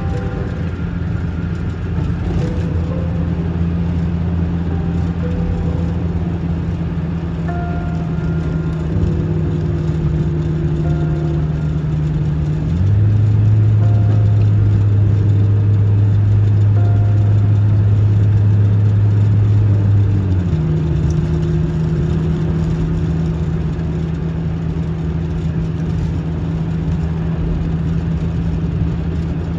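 Ambient instrumental music: low drone notes held for several seconds, shifting to a new chord a few times and louder in the middle stretch, with sparse higher notes above, over a steady hiss of road noise.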